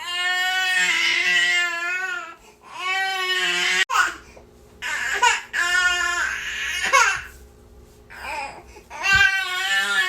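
Baby crying in a string of wails, each lasting a second or two, with short catches of breath between them.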